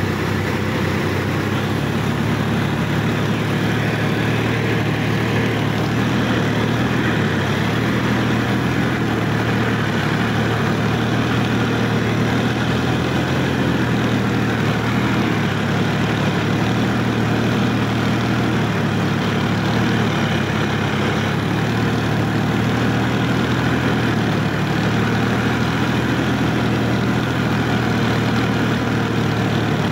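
Sonalika DI-50 RX tractor's diesel engine running steadily as the tractor is driven, a constant low hum with no revving.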